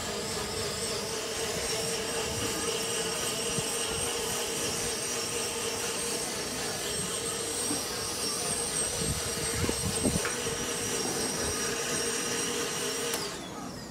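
High-speed blender running steadily, blending soaked cashews and water into a smooth sauce, then switching off about a second before the end.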